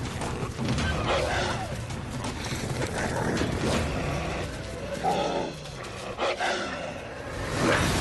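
Coyotes snarling and growling as they fight, rough bursts of snarls over a music score, with a loud rush of noise near the end.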